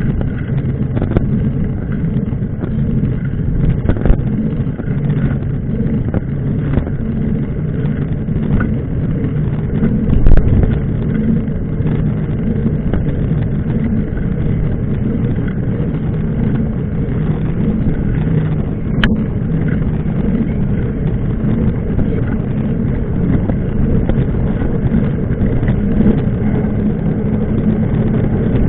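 Engine running steadily, a continuous low drone with a steady hum, and a single sharp click about two-thirds of the way through.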